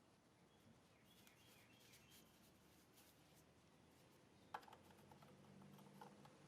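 Near silence: faint outdoor background with distant bird chirps and a few faint clicks, one a little sharper about four and a half seconds in.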